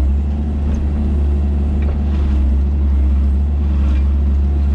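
Kubota 161-3 mini excavator's diesel engine running steadily under the operator, with a constant low drone.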